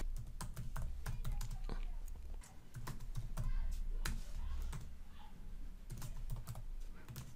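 Typing on a computer keyboard: a run of irregular, quick key clicks.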